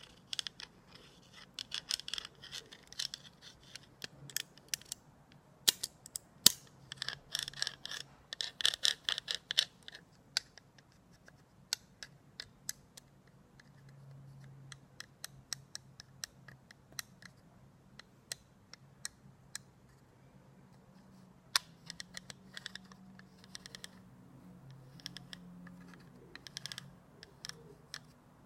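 Close-miked wet, sticky mouth sounds from eating aloe vera gel: irregular smacks and clicks, coming in thick clusters a couple of seconds in and again around eight to ten seconds, sparser in between.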